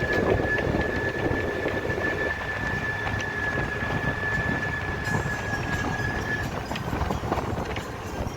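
Train running with a continuous rumble, and a steady high whine that stops about six and a half seconds in.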